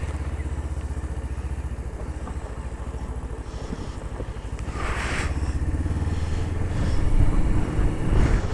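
Motorcycle engine running as the bike is ridden at low speed, its firing pulses steady and growing louder about halfway through. A brief rushing noise comes about five seconds in.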